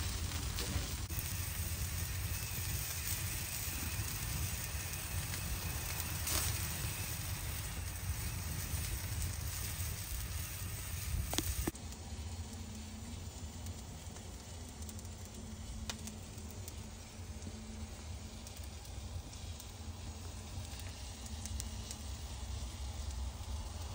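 Pork ribs sizzling on the grate of a Santa Maria grill over the fire, with a few sharp crackles and a steady low rumble. The sizzle drops a little about halfway through.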